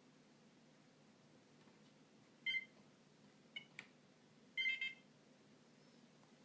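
Philips Savvy mobile phone beeping: a short high beep, two faint ticks about a second later, then a longer, broken beep at the same pitch.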